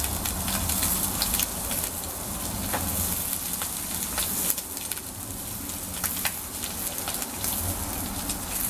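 Bacon and an egg sizzling on a thick steel griddle plate over a gas burner: a steady hiss with scattered crackling pops.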